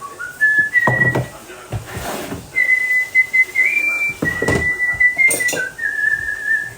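A person whistling a simple tune, held notes stepping up and down in pitch, with a few short knocks of kitchen utensils in between.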